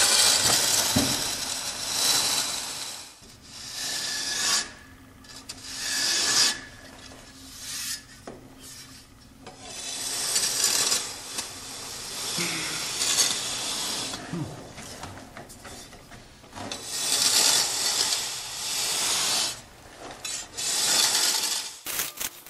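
A blade scraping across the face of freshly applied brownstone reproduction mortar on a wall. It comes in repeated strokes lasting one to a few seconds each, with short pauses between them.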